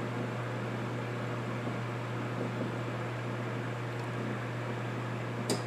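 Steady low electrical hum under an even fan-like hiss, with one small sharp click near the end.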